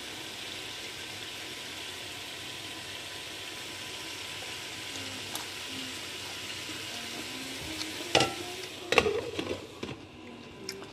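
Shell-on boiled peanuts sizzling in a hot stainless steel pan as the leftover cooking water steams off. About eight seconds in, a few loud clinks and clatter as a glass lid is set on the pan, and after that the sizzle is quieter.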